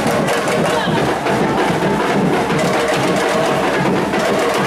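A carnival street percussion group plays a dense, steady drum rhythm.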